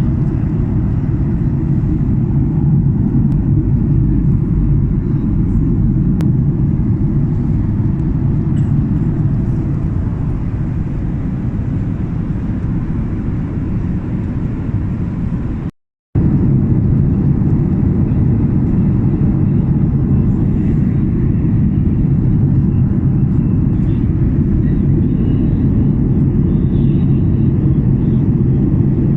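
Passenger airliner's engines and airflow making a steady, loud low rumble. The sound cuts out completely for a moment about halfway through, then resumes unchanged.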